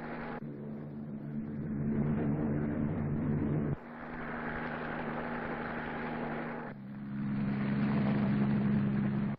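Light piston-engined propeller aircraft droning steadily. The engine note changes abruptly about half a second in, near four seconds and near seven seconds, as one aircraft's engine gives way to another's.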